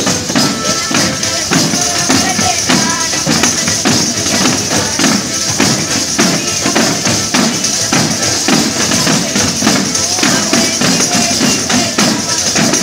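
A group of tamburelli, frame drums with jingles, played together in a fast, even folk-dance beat, the jingles making a constant bright shimmer. An accordion plays along.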